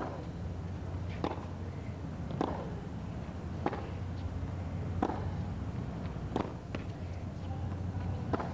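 Tennis rally: a tennis ball struck back and forth by rackets in a baseline exchange, one sharp hit about every second and a quarter, about seven in all, over a steady low hum.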